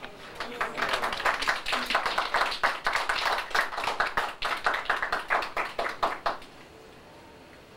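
Guests applauding at the end of a toast, a dense patter of hand claps that stops after about six seconds.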